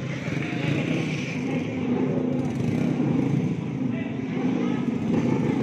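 Small motor scooter engines running at low speed over steady crowd chatter.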